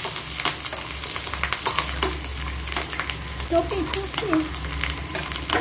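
Chopped ginger and garlic frying in hot oil in a metal kadai, sizzling steadily while a spoon stirs them, with many short irregular clicks and scrapes of the spoon against the pan.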